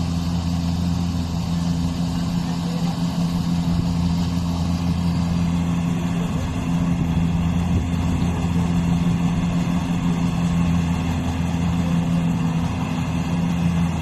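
An engine running steadily at a constant speed, a low even hum that holds its pitch throughout.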